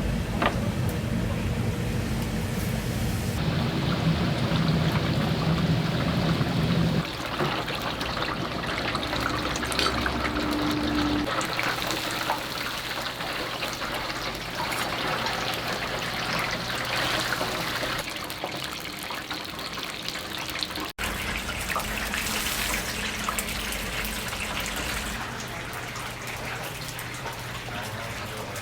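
Chicken deep-frying in hot oil, a steady crackling sizzle, heard across several short shots that change abruptly. A low steady hum runs under some of them.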